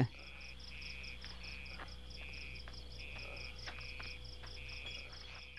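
Faint insect chirping in an even rhythm: a high chirp repeating about six times a second over a lower chirp about twice a second, with a faint steady hum beneath.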